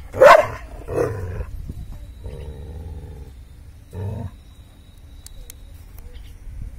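A dog barking and growling at a snake: a loud bark just after the start, another about a second in, a drawn-out growl around two to three seconds, and a short bark at about four seconds.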